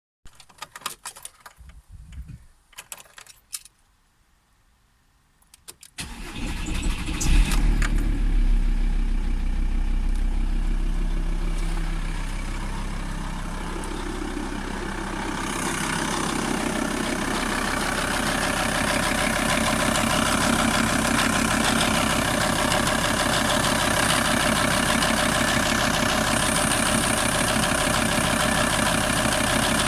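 A few clicks and knocks, then a Volkswagen T4 2.5 TDI five-cylinder diesel starts about six seconds in and settles into a steady idle. Its clattering knock is what the owner is asking about.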